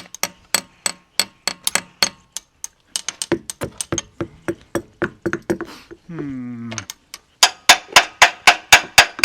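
Rapid hard tapping, a child banging a tool against a hard surface over and over, about two to four strikes a second. The strikes get louder and quicker near the end. About six seconds in there is a short falling pitched sound.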